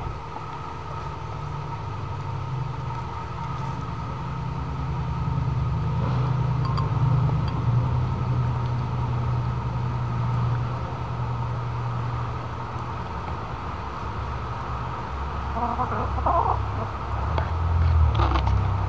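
Hens pecking soup from a ceramic bowl over a steady low rumble, with a few sharp beak clicks on the bowl near the end. About three-quarters of the way through, a hen gives a short run of soft clucks.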